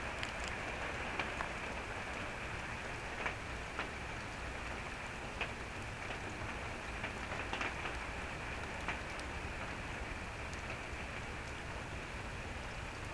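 Steady rain falling, a constant hiss with scattered louder drop ticks hitting nearby surfaces.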